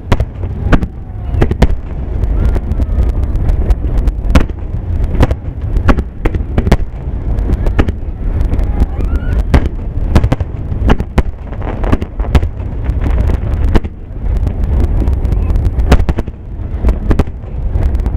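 Fireworks finale barrage: aerial shells bursting in rapid succession, loud sharp bangs several a second over a continuous low rumble.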